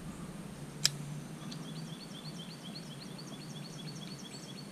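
A bird chirping over and over, short high chirps about three or four a second, with one sharp click about a second in.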